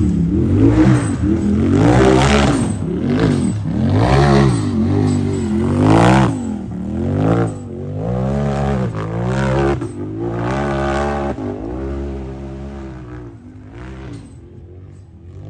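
Racing UTV engine revving up and down over and over, about once a second, growing fainter near the end.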